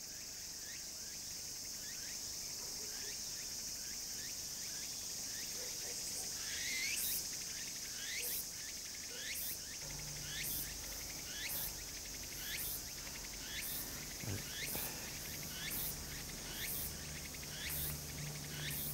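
Insects chirring steadily at a high pitch. From about six seconds in, a chirp repeats about once a second, and a low steady hum joins at about ten seconds.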